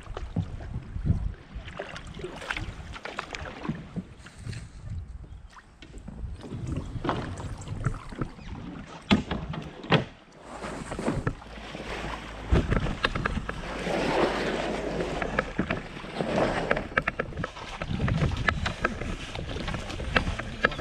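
Open canoes being paddled through shallow water: irregular paddle splashes and knocks of paddles against the hull, with wind on the microphone.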